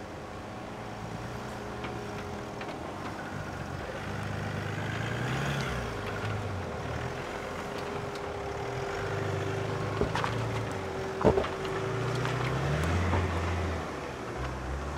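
Mercedes G350 engine pulling at low speed over rocks, its note rising and easing back three times. Two sharp knocks come about two-thirds of the way through, the second the loudest.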